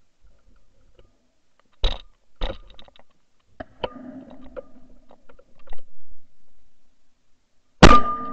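A single shotgun shot near the end, the loudest thing here, heard at close range from a camera mounted on the gun's barrel and followed by a short ringing. About two seconds in come two quieter sharp bangs, then scattered clicks and rustling.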